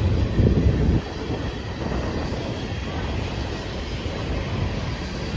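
Freight train of steel coal hopper cars rolling past close by: a steady rumble of wheels on rail, louder for the first second and then even.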